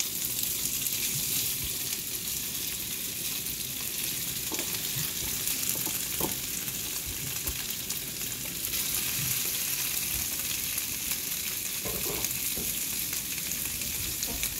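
Hot oil with tempered cumin seeds, curry leaves and green chilies sizzling steadily in a non-stick pan as cubes of boiled potato are added by hand. There are a few faint knocks along the way.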